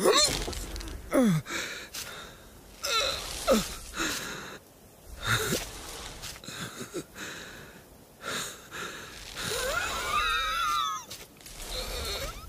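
Animated sheep making wordless vocal noises: wheezy, strained breaths and grunts that fall in pitch, with a longer wavering cry near the end.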